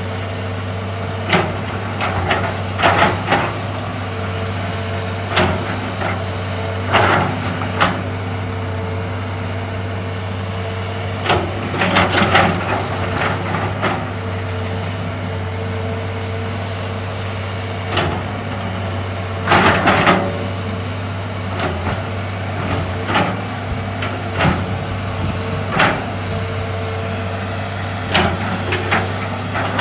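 Hitachi EX200 hydraulic excavator's diesel engine running with a steady drone while it digs and loads a dump truck, with irregular knocks and clatter from the work, the loudest about twelve and twenty seconds in.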